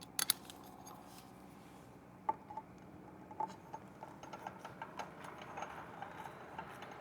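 Faint, scattered clicks and light taps of small mounting hardware and screws being handled and fitted, with two sharp clicks just after the start and a knock a little past two seconds.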